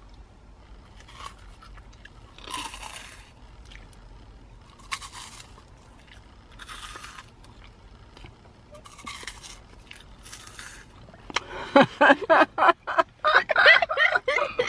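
Crunchy snack being bitten in turns, about five crisp crunches a second or two apart, made to sound like footsteps in snow. Near the end a much louder stretch of sound takes over.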